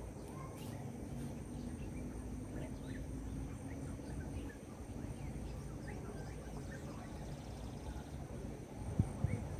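Outdoor ambience: a steady low rumble with faint, scattered bird chirps, and a few knocks about nine seconds in.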